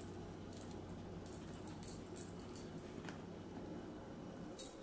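Quiet room with a few faint, brief metallic jingles from a dog's collar as the dogs shift about, and a small click about three seconds in.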